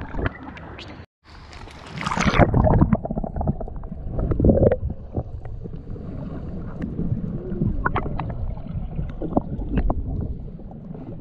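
Water heard from under the surface of the sea: a rushing splash about two seconds in as the camera goes under, then muffled low sloshing with gurgling bubbles and small clicks.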